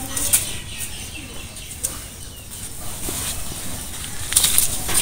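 Taro leaves and stalks rustling as they are handled and picked, with a few crisp snaps near the end.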